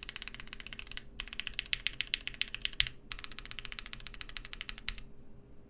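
Fast typing on a Bakeneko60 mechanical keyboard with lubed, filmed Lavender switches and PBT keycaps: quick runs of keystrokes broken by two short pauses, stopping about five seconds in. A faint steady fan hum sits underneath.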